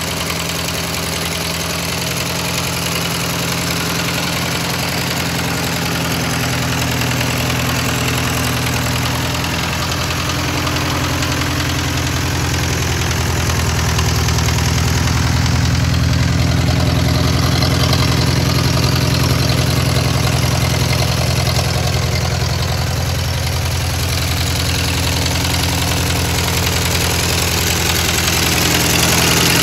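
1951 Ford 8N tractor's four-cylinder flathead engine idling steadily.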